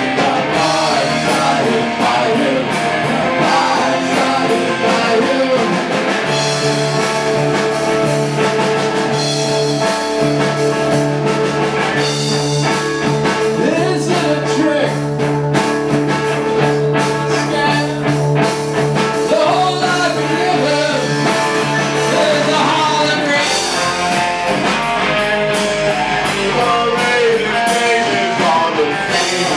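Rock band playing live on electric bass and electric guitar through amplifiers, with long held chords through the middle stretch.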